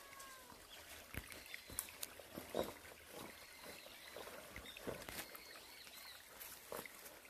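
Footsteps crunching and rustling through dry leaf litter and twigs, in irregular steps, with a few faint high chirps in the background.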